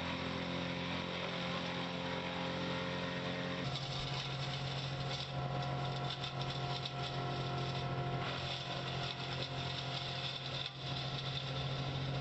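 Gas chainsaw running at high speed while cutting brush, its engine note shifting to a new steady pitch about four seconds in.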